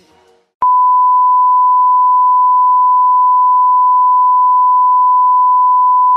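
Broadcast test tone, the steady single-pitch beep played with TV colour bars. It starts suddenly with a click about half a second in and holds loud and unchanging.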